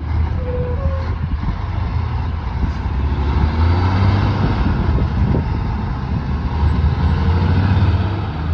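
Diesel engine of a cab-over semi-trailer truck pulling a B-double, passing close as it accelerates away through a roundabout. It makes a loud, steady low drone under load.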